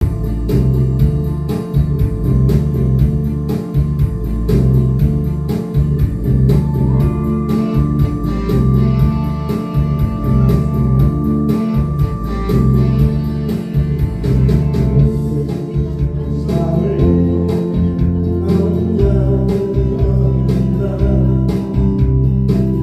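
Instrumental intro of a song's backing track with a steady beat, bass and guitar, and a long held lead note in the middle.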